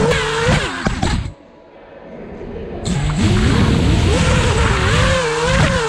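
Brushless motors and propellers of an FPV racing quadcopter (Xing 2207 2450KV motors) whining, the pitch rising and falling with the throttle. The sound drops away about a second and a half in, then spools back up with a steeply rising whine about three seconds in and carries on.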